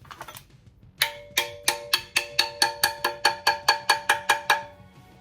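Hammer tapping on a metal part: a run of about seventeen quick, ringing metallic strikes at roughly four to five a second, starting about a second in and stopping shortly before the end.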